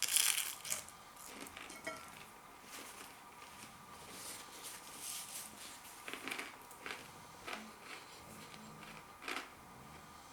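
Faint, scattered clicks and short crunching noises of someone eating tempura-battered king prawns, with a louder noisy burst at the very start.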